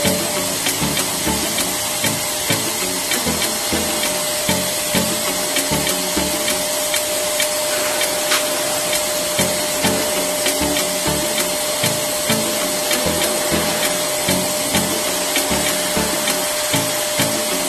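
Electric balloon pump running steadily with a constant mid-pitched whine and rushing air as it inflates a vinyl beach ball, with plastic crinkling and rustling as the filling ball is handled.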